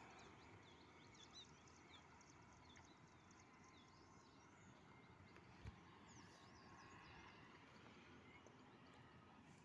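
Near silence: faint outdoor ambience with scattered faint bird chirps, and one soft click about five and a half seconds in.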